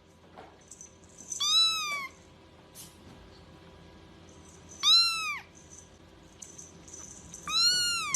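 A cat meowing three times, each meow a high call that rises and falls in pitch, about three seconds apart.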